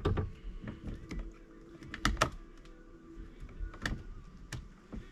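Irregular clicks and knocks of a chainsaw's parts being handled and worked on by hand, with a sharp pair of knocks about two seconds in.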